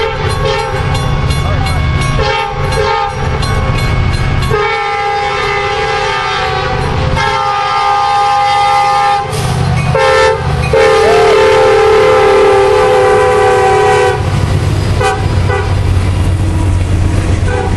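CSX EMD SD70MAC No. 4711's air horn sounding a chord in several long blasts with short gaps as the locomotive approaches and passes. Its pitch drops about ten to eleven seconds in as the locomotive goes by. After about fourteen seconds the horn stops and the low rumble of the diesel locomotives and the freight cars rolling past takes over.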